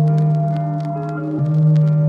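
Background music: slow, sustained synth chords over a deep bass note, changing chord about a second and a half in, with faint clicks scattered over them.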